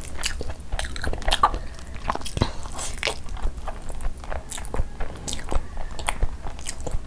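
Close-miked chewing of a mouthful of soft, wet khichdi rice: irregular wet smacks and clicks, several a second. Mixed in is the squish of bare fingers scooping the rice.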